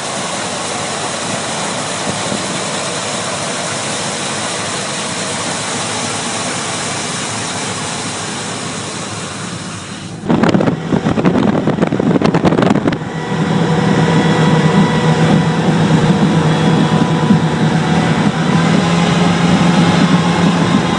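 The 2003 Fountain 35 Lightning's engines running steadily under a wash of noise. About ten seconds in comes a loud rough burst lasting a few seconds. Then the engines settle into a louder, steady drone as the boat gets under way.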